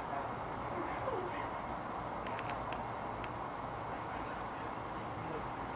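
Crickets chirping in a steady, high-pitched trill, with a few faint ticks in the middle.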